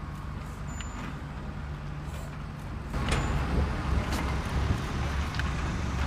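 Bruder toy cement mixer's light-and-sound module playing a recorded truck engine running, getting louder about three seconds in.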